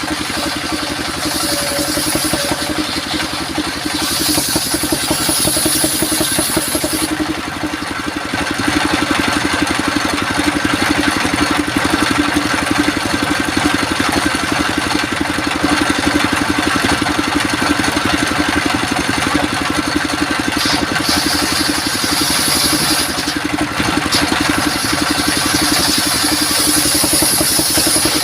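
Engine-driven sawmill machinery running steadily, with a higher hiss that swells and fades several times.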